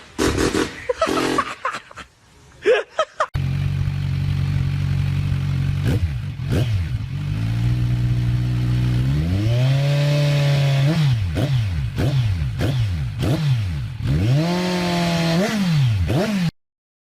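An engine running, then revved over and over so that its pitch climbs and dips repeatedly; it cuts off suddenly near the end. A few seconds of clattering come before it.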